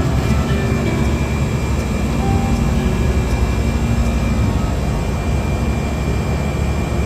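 Compressor of an ice thermal storage chiller running steadily after replacement: a loud, even machine drone with a low hum and a faint steady whine.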